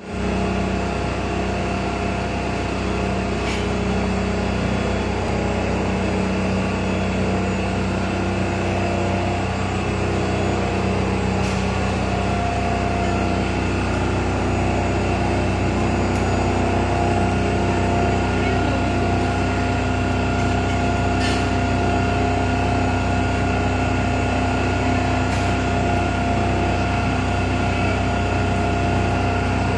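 Industrial frying-line machinery running: conveyor drives and electric motors give a steady hum of several held tones, with a few faint clicks.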